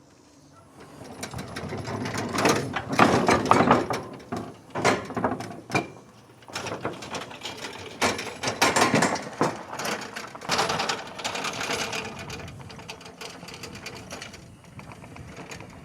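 SDLANCH SDLLM500 24-volt battery-electric remote-controlled tracked mower driving: electric drive motors whirring and the tracks rattling. It comes in several surges as it starts and stops, easing off toward the end.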